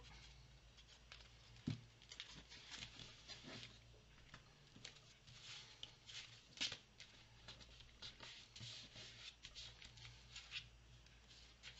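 Faint rustling, scratching and light tapping of paper and card being handled and pressed down on a table while gluing, with one soft knock about two seconds in.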